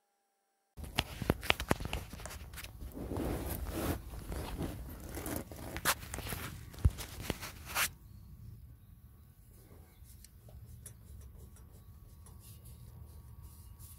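Handling noise: a dense run of sharp clicks and knocks over scraping starts about a second in and lasts some seven seconds, then quieter scattered ticks follow.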